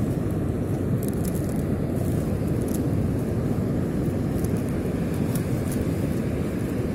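Steady low rumble of surf and wind at the shoreline, with a few faint small clicks.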